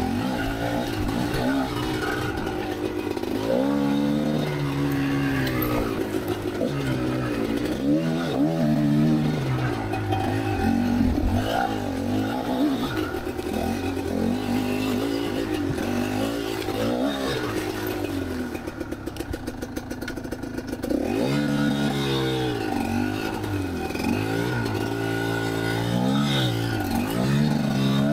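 Kamax KMX 250 two-stroke dirt bike engine being ridden on a trail, revving up and falling back again and again as the throttle is worked. About two-thirds in, the throttle is shut and the engine drops to low revs for about two seconds before picking up again.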